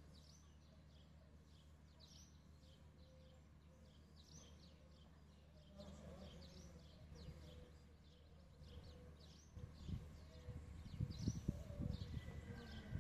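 Small birds chirping over and over above a faint, steady low hum from the distant MAN diesel railcar. From about ten seconds in, an uneven low rumble grows louder.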